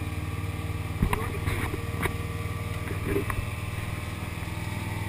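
Tow boat's engine running steadily under way, a constant low drone, with a few sharp knocks between about one and three seconds in.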